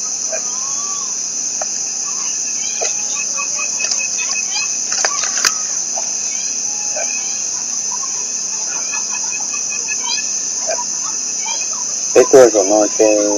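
Steady high-pitched drone of insects (crickets or cicadas), with a few faint chirps and clicks. About twelve seconds in, loud repeated pitched calls break in over it.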